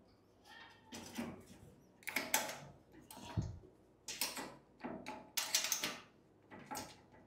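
Caster wheels being fitted by hand into the steel base of a mobile filing cabinet: a run of short scraping and rattling sounds as the wheel stems are turned and the wheels swivel, with a single knock about three and a half seconds in.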